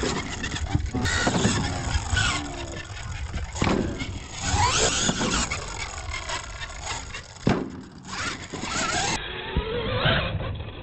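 R/C monster truck's motor and gears whining up and down in pitch as it is throttled hard, with tyres spinning and scrabbling on dirt. Several hard thumps and clatters of jumps landing, the sharpest about two-thirds of the way through.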